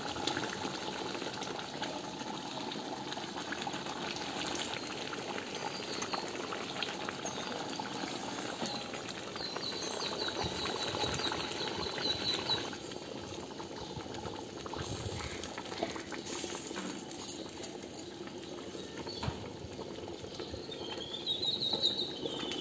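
Fish curry boiling in a steel pot, a steady bubbling hiss.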